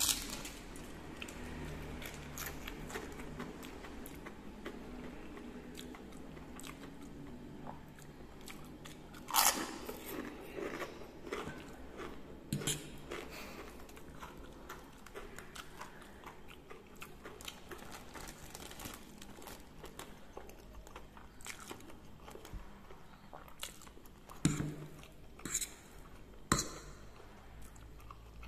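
Close-up chewing and crunching as a man eats fried instant noodles and crispy seroja crackers, with a handful of louder sharp cracks: one about nine seconds in and a cluster near the end.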